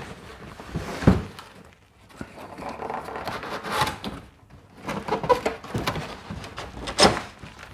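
Original Amiga 1000 cardboard box being worked open, its tight tabs freed and the flaps lifted, with cardboard scraping and rustling, a thump about a second in and a sharp knock near the end.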